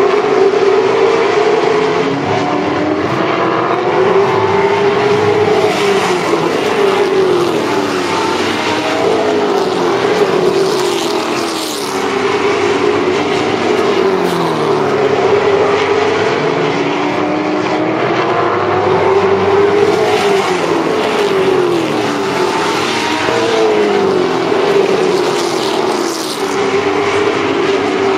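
A field of late model stock cars' V8 engines racing around a short oval, several engines at once, their pitch climbing under acceleration and falling off again in a repeating cycle about every eight seconds as the pack laps the track.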